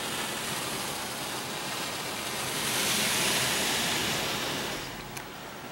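Water spray from a LaserWash 4000 touch-free car wash hitting the car, heard from inside the cabin as a steady hiss that swells to its loudest about three seconds in, then dies down near the end.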